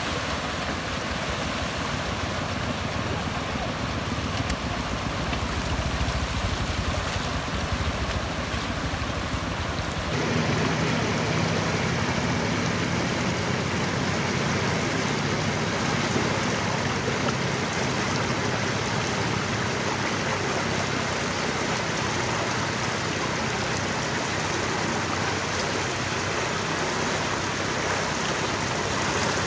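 Floodwater rushing and splashing over a submerged road, a steady noise throughout. For the first ten seconds a two-wheel walking tractor's engine runs under the splashing as it pulls a loaded trailer through the flood; about ten seconds in the sound changes abruptly to the rush of water alone.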